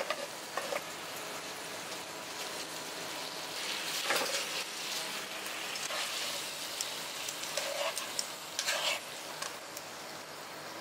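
Spaghetti with small freshwater crabs and asparagus sizzling in oil in a frying pan, stirred and tossed with metal tongs. There is a steady sizzle, with a few louder stirring strokes about four seconds in and again near the end.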